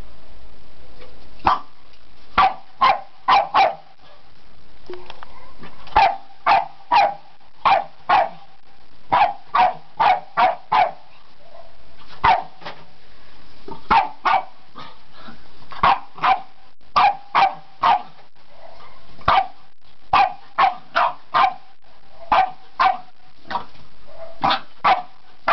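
Staffordshire bull terrier puppy barking at a stink bug, in quick runs of three to five sharp barks that start about a second and a half in and come back every couple of seconds.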